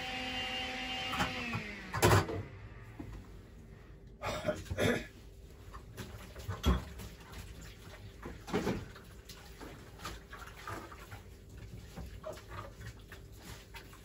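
Dishes and utensils knocking and clinking in a stainless-steel sink as they are washed up by hand: scattered clatters, loudest about two seconds in and again near seven seconds. At the start a held musical chord slides down in pitch and cuts off just before the first clatter.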